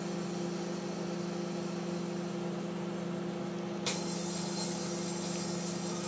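Panasonic inverter microwave oven running with a steady hum while a metal halide bulb inside it is nuked. About four seconds in, a loud hiss starts suddenly as a bright plasma flares up in the bulb, a sign of air inside the bulb's envelope.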